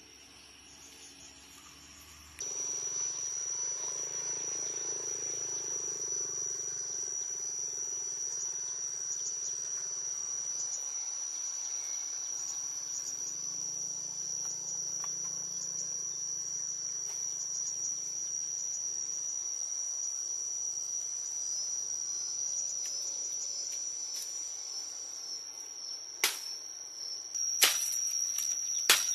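Insects buzzing steadily at a high pitch throughout. Near the end come a few sharp chops of a knife cutting into bamboo.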